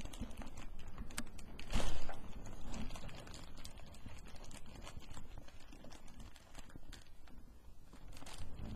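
Clear plastic wrapper crinkling and rustling as hands pull a patty out of it, in many small irregular crackles, with a louder crackle about two seconds in and another near the end.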